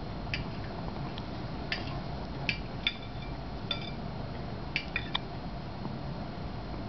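Newborn baby hiccupping: about eight short, sharp, high-pitched hics at uneven intervals, three of them in quick succession a little past the middle, over a steady background hiss.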